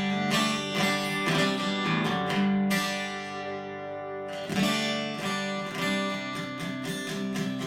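Acoustic guitar being strummed and picked between songs, with one chord left ringing for about a second and a half midway before the strumming picks up again.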